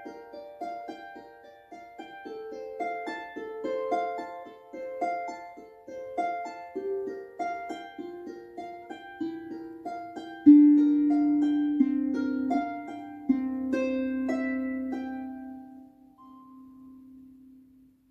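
Solo Celtic harp: an even run of plucked notes, then from about ten seconds in a few louder low notes and chords left to ring and fade away, closing the tune.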